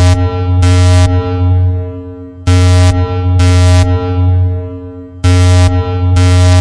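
Nuclear alarm sound effect: a pitched electronic klaxon sounding in pairs of short blasts, three pairs in all, repeating about every three seconds. Each pair is followed by a ringing echo that dies away, over a steady low hum.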